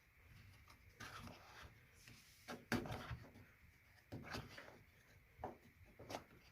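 A few faint clicks and scrapes of a front-load washer's plastic drain filter cap being turned counterclockwise by hand to unscrew it, the sharpest click about three seconds in.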